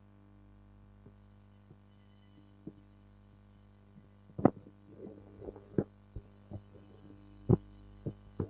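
Steady low electrical mains hum picked up by the recording microphone, with scattered faint clicks that grow sharper and more frequent in the second half.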